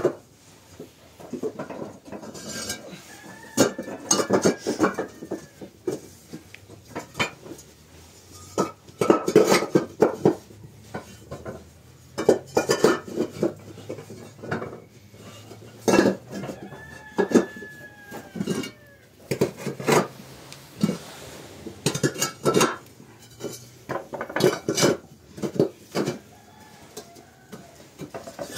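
Hollow clay bricks clinking and knocking against each other as they are set down and pushed into place on the floor, in bursts of clatter every few seconds.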